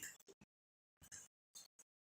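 Near silence, with a few faint short sounds.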